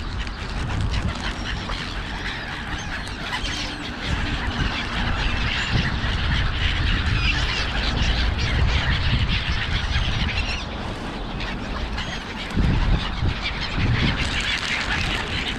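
A flock of gulls calling, many harsh squawks overlapping without pause, over a low rumble.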